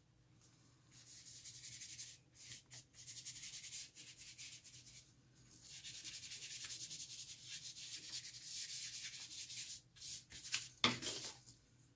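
Bristle paintbrush scrubbing acrylic paint across textured mixed-media paper: dry, scratchy brushing strokes in two long stretches, then a short knock near the end.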